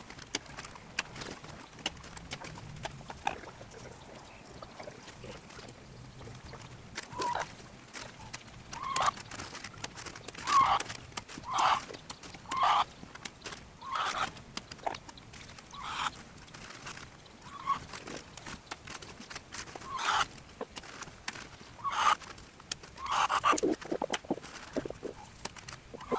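Chickens clucking, with short calls coming about once a second through the second half, over light clicks and rustling.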